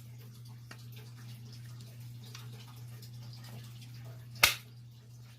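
Hex-key work on a Cerberus Pyrotronics MS51 fire alarm pull station: a faint click under a second in, then one sharp click about four and a half seconds in, over a steady low hum.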